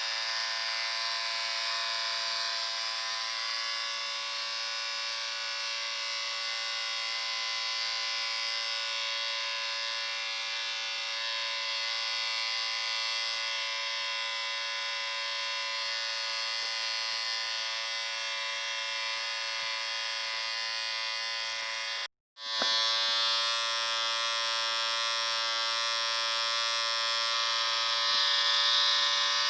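Electric shaver buzzing steadily, a continuous motor hum with many overtones. It cuts out for an instant about two-thirds of the way through, then carries on slightly louder.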